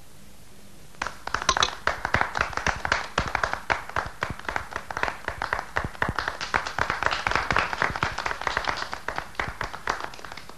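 A few people applauding by hand. The clapping starts about a second in and dies away near the end.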